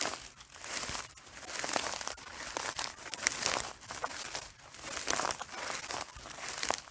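Footsteps on dry, crisp hay or straw: a run of crunching, crackling steps, about one or two a second.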